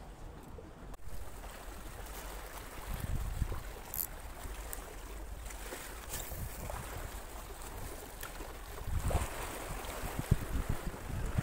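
Wind buffeting the microphone over waves lapping against a rock jetty, with a few sharp clicks and a louder gust near the end.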